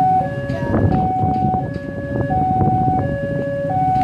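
Railway level-crossing alarm sounding its two-tone electronic warning: a high note and a lower note alternate steadily, each held about two-thirds of a second, over a low rumble.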